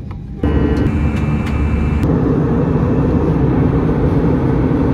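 Jet airliner engines heard from inside the cabin: a loud, steady roar, with a high whine over it for the first couple of seconds.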